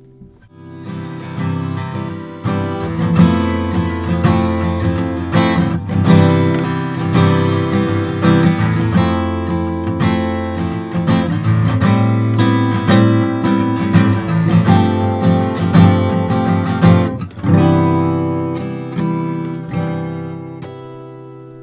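Taylor E14ce Grand Auditorium acoustic guitar, with African ebony back and sides and a Sitka spruce top, strummed and picked through a run of chords. There is a short gap about 17 seconds in, and the playing eases into a ringing chord near the end.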